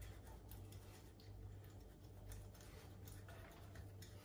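Faint, irregular scraping strokes of a block of mature cheddar being grated on a handheld metal grater.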